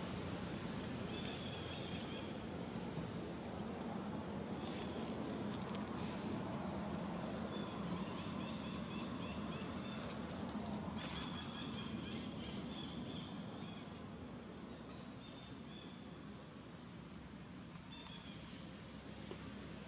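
Steady high-pitched insect chorus, with short trains of chirps now and then.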